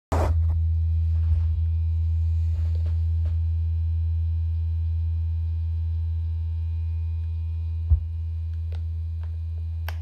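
Steady low electrical hum with a few faint clicks, the clearest about eight seconds in.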